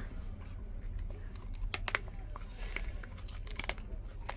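Food being bitten and chewed close by, a few crisp crunches and clicks with some crinkling.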